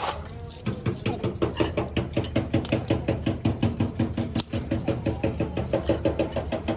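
Nissan dump truck's differential gear set turned by hand with a steel shaft through its centre. One sharp knock at the start, then a fast, even run of metallic clicks, several a second.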